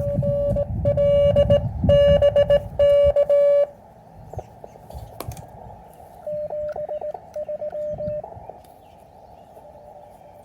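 Morse code tones from an Elecraft KX3 transceiver, a steady tone keyed on and off. A loud run of code lasts the first three or four seconds. A fainter run of code follows about six seconds in, over a steady band of receiver hiss.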